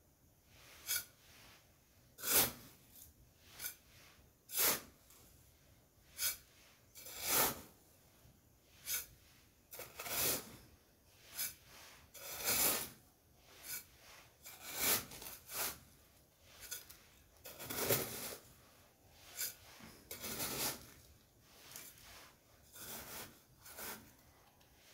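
A miniature metal-bladed spade scraping and scooping into sand, one short gritty stroke about every second.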